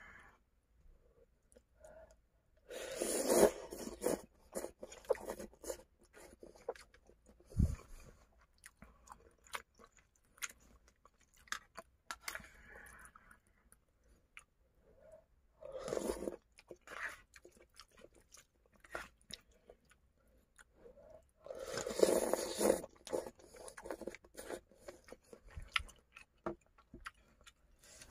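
A person chewing and crunching food close to the microphone, with many small crunchy clicks and three louder crunching bursts.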